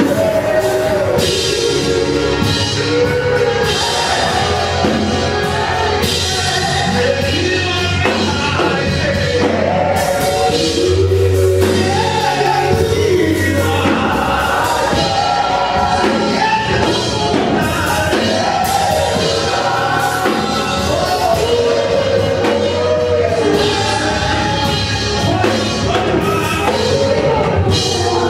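Live gospel worship song: women's voices singing over a drum kit and low sustained bass notes.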